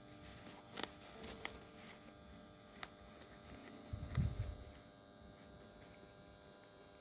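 Faint handling of denim as the folded hem is pinned: a few small clicks and a soft low thump about four seconds in, over a steady low hum.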